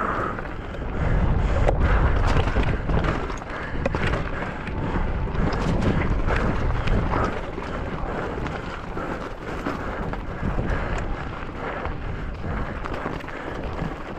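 Mountain bike descending fast in a race run: wind buffeting the microphone, with a steady rush and many quick knocks and rattles from the bike over rough ground.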